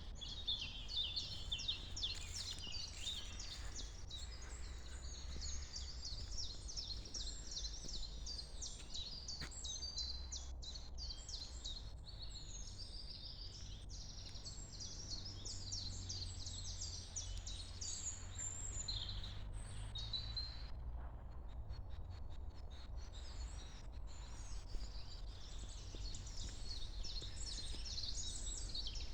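Many small birds chirping and twittering together in a dense chorus of quick high notes, thinning out for a few seconds about two-thirds of the way through. A steady low rumble runs underneath.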